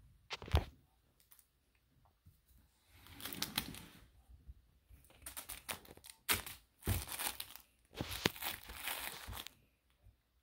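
Crinkling and rustling in several bursts as an Old English Sheepdog puppy mouths and drops a soft fabric toy, with a few sharp taps on a hardwood floor.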